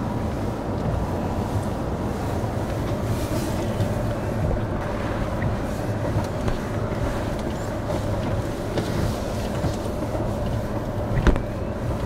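A motor vehicle driving: steady engine and road rumble with a constant hum. A single sharp knock comes near the end.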